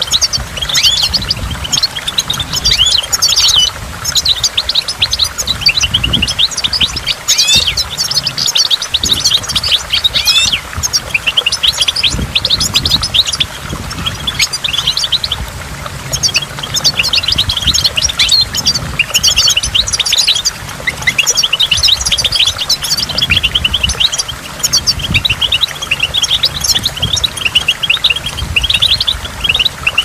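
European goldfinch singing: a long run of fast, twittering notes with a few short pauses, over a low rumble.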